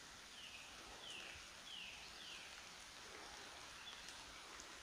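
Quiet woodland ambience: a distant bird repeats a short, high, falling note four times in about two seconds, over a faint steady hiss.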